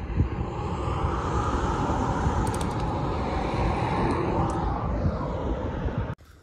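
Steady rush of wind and road noise from riding on a motorcycle, loud and even, cutting off abruptly near the end.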